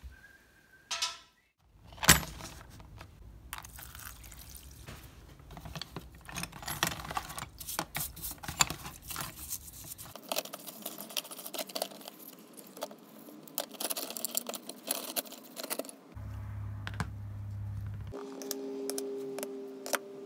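Small metal bicycle hub parts clinking and rattling as they are scrubbed with a brush in a plastic tub of liquid, a run of irregular clicks and scrapes. There is one sharp knock about two seconds in.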